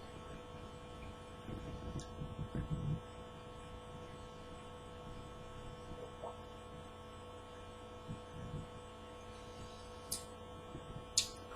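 Steady electrical mains hum on the recording, with faint low, irregular sounds of someone chewing a bite of oat flapjack, and a few sharp clicks near the end.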